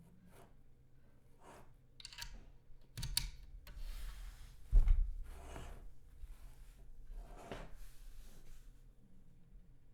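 Scattered soft rubbing and clicking sounds, with one heavy thump about five seconds in; no steady run of typing.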